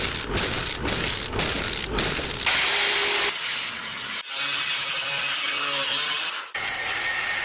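Rhythmic rasping strokes of a hand tool working material, about two a second, then a steady hiss about two and a half seconds in, followed by quieter shifting noise.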